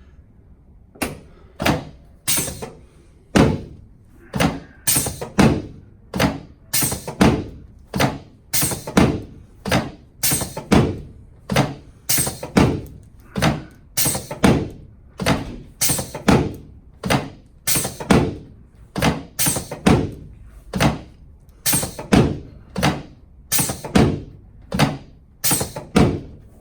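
A steady, even run of sharp knocks, a little under two a second, starting about a second in, each with a short ringing tail.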